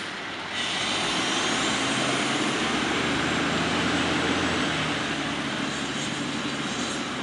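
Fire engine pumper's diesel engine running and its tyres on the road as it drives past without its siren. The sound jumps up about half a second in, is loudest near the middle, then eases off as the truck pulls away.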